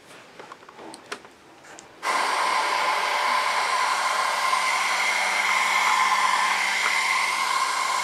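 Electric heat gun switched on about two seconds in, blowing hot air steadily with a whine, shrinking a heat-shrink butt connector onto a wire splice. A few faint clicks of wire handling come before it.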